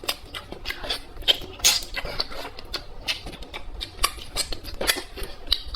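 Close-miked chewing and mouth sounds of a person eating: a quick, irregular run of short clicks, smacks and crunches.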